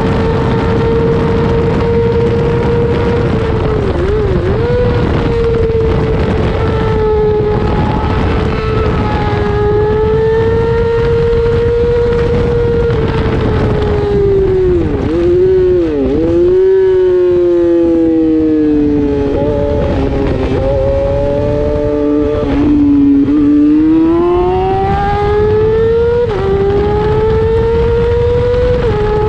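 600cc racing motorcycle engine heard onboard at racing speed, with heavy wind rush. It holds a high, steady note, falls with a few sharp dips in pitch as the bike brakes from top speed about halfway, runs lower for a while, then climbs through quick upshifts near the end.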